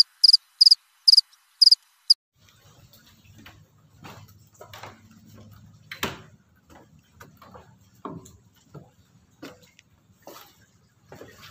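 Cricket-chirp sound effect: a quick string of loud, high, evenly spaced chirps lasting about two seconds, the comic "crickets" cue for a call that nobody answers. After that, quiet ambience with scattered light knocks and clicks, the sharpest about six seconds in.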